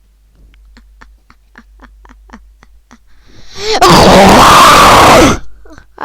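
A run of faint quick ticks, then a very loud, harsh, distorted cry or scream lasting about a second and a half that cuts off suddenly.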